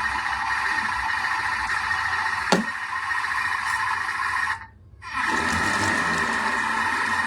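Food sizzling steadily in a frying pan during stir-frying, with one sharp knock of a utensil against the pan about two and a half seconds in. The sizzle cuts out for about half a second just after the middle.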